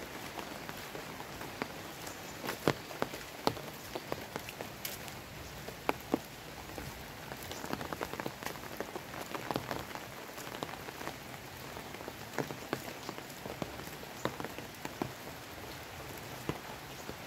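Rain falling steadily, with sharp close drops tapping at irregular moments throughout.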